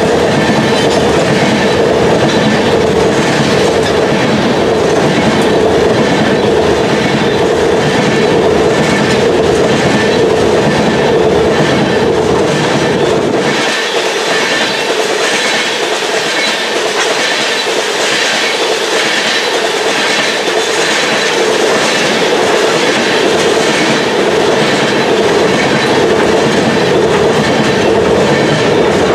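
Oil tank cars of a freight train rolling past close by, their wheels clicking over rail joints in a steady, even clickety-clack.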